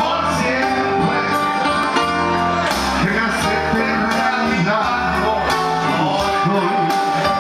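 Two men singing into microphones over amplified music with guitar and a steady bass line, played through a PA speaker.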